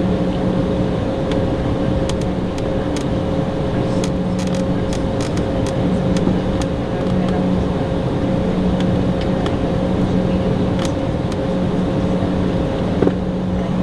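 Embraer E190 cabin noise with the GE CF34 turbofans running at a steady, even pitch while the jet rolls along the ground, heard from inside the cabin. There are many faint scattered clicks over the hum.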